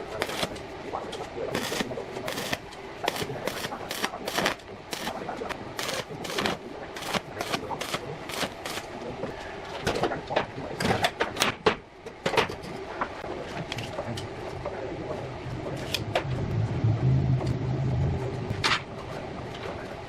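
Irregular knocks and clanks of metal parts being handled and set down, with a low hum for a couple of seconds near the end.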